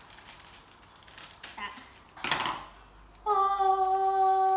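A girl humming one long, steady note, starting about three seconds in. Before it, faint clicks and a short rustle of handling.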